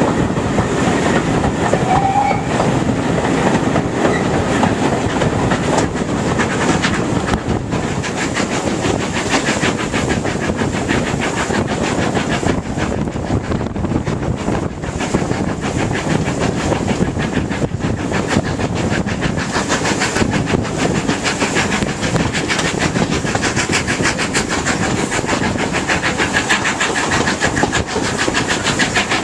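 A passenger train hauled by a 4F steam locomotive running along, heard from an open carriage window. The carriage wheels clatter over the rail joints amid rushing air noise, with a quick, even beat that grows clearer in the second half.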